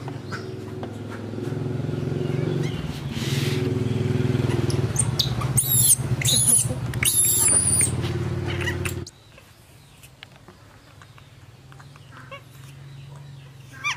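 A baby macaque gives several short, high-pitched calls that rise and fall sharply, over a steady low hum. The hum cuts off abruptly about nine seconds in, leaving quieter background with one brief call near the end.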